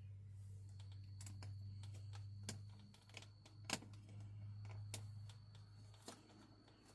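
Scattered light clicks and taps of car door-handle parts being handled and fitted, irregular and a second or so apart, over a steady low hum.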